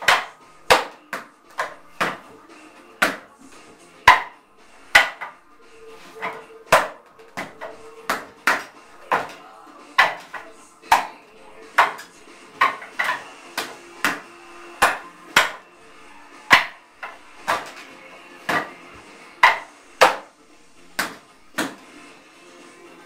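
Forearms and hands striking the wooden arms and trunk of a wing chun wooden dummy (mook jong): sharp wooden knocks in an irregular run, about one to two a second, some in quick pairs.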